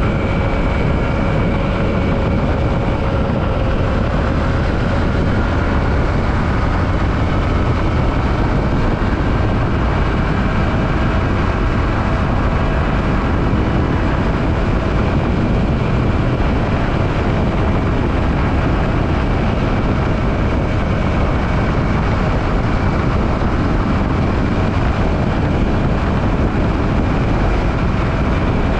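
Yamaha WR155R motorcycle riding at a steady cruise: its single-cylinder engine runs with a faint, slowly drifting pitch under heavy, constant wind rush on the microphone.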